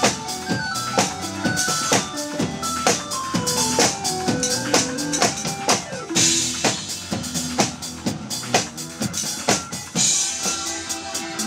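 Live band music: a drum kit keeping a steady beat under a melody of quick notes that step mostly downward, with electric guitar.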